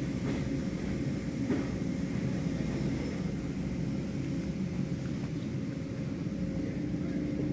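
Automatic tunnel car wash running: spinning blue cloth wrap brushes, water spray and the wash machinery make a steady low rumble, with a constant hum from a motor.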